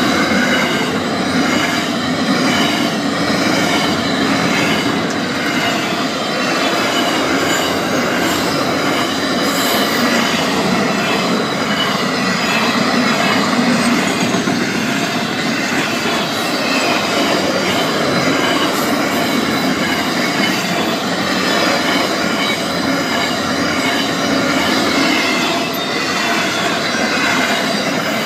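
Double-stacked container wagons of a freight train rolling past close by: a loud, steady rumble of steel wheels on rail, with wavering high-pitched tones over it.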